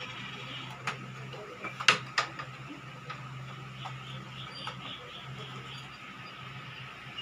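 A steady low hum with a handful of sharp clicks or taps; the loudest comes about two seconds in, with a second just after it.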